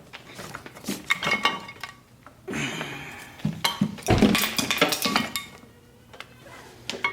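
Metal transmission parts and tools clinking and knocking together as they are handled, with ringing clinks and a heavier knock about four seconds in.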